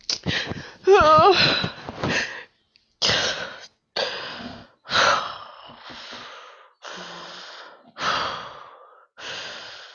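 A woman crying. A wavering sob comes about a second in, then heavy gasping breaths follow, about one a second.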